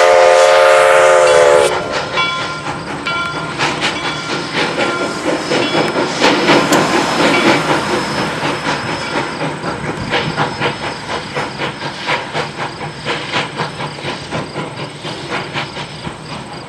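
Steam locomotive No. 136, built by Rogers in 1883, sounds its chime whistle, which cuts off about two seconds in. Then comes the rhythmic clatter and hiss of the train running, fading steadily as it moves away.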